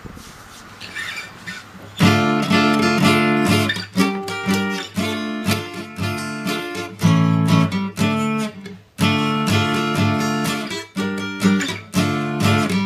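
Background music of a strummed acoustic guitar, starting about two seconds in after a quiet opening, with a brief break near the middle.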